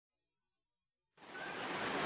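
Silence, then a little over a second in the rush of a river-rapids water ride's churning water starts up and grows steadily louder.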